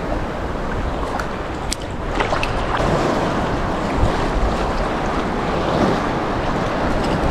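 Small surf waves washing steadily around a wading angler, with wind buffeting the microphone. A few light sharp ticks come between about one and three seconds in.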